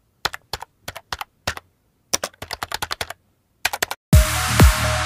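Keyboard typing sound effect: quick, irregular clicks in short clusters, laid over text being typed onto a title card. About four seconds in, electronic dance music with a heavy, deep kick drum starts abruptly.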